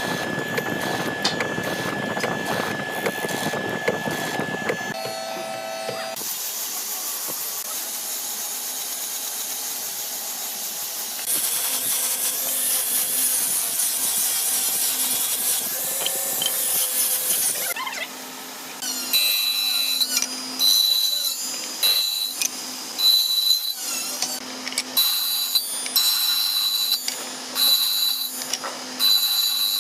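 Power tools working wood: a steady machine hum with a thin fixed tone for about five seconds, then high hissing cutting noise, then a run of short repeated strokes, each with a whine, through the last ten seconds or so.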